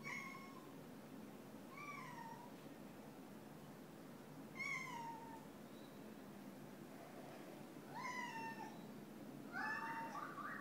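Cat meowing five times, short calls that fall in pitch, spaced about two seconds apart; the last one, near the end, is longer and rougher.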